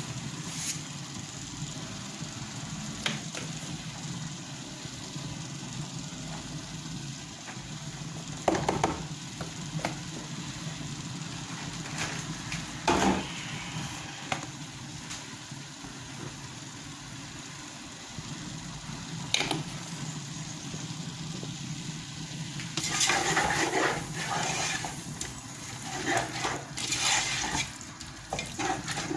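A spoon stirring and scraping in a cooking pot of potage, in clattering bursts that start about three-quarters of the way in. Before that there is only a steady low hum with a few single knocks of utensils against the pot.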